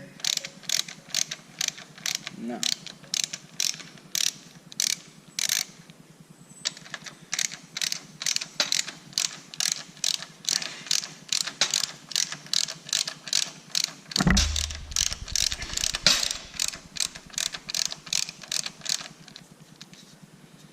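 Hand ratchet wrench clicking in quick, repeated strokes, about two to three clicks a second, with a brief pause partway through. A heavier thump comes about two-thirds of the way through.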